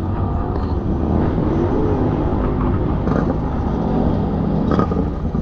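Vehicle engines idling nearby with a steady low rumble.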